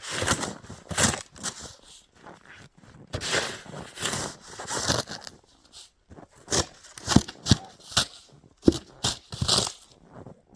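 Snow crunching and scraping in irregular bursts, with sharp crunches in between.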